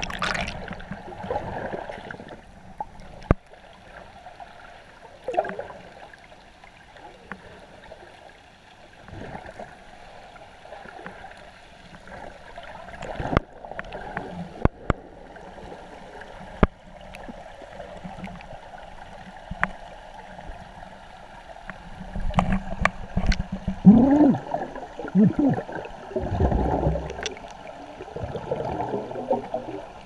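Underwater sound heard through a GoPro's waterproof housing: a muffled, even water noise with scattered sharp clicks and knocks. Louder gurgling bursts of air bubbles come in about two-thirds of the way through.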